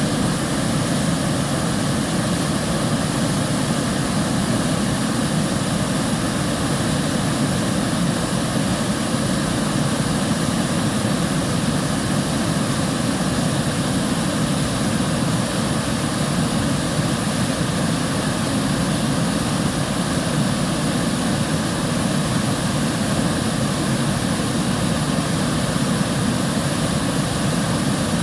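River water flowing, an unbroken rush with a deep body and a hiss on top.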